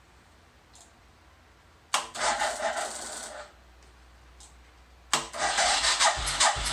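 Suzuki Savage's 650 cc single-cylinder engine being turned over by its electric starter without catching: a short crank about two seconds in, then a longer one starting near the end with a slow, even beat of compression strokes. The battery is getting weak.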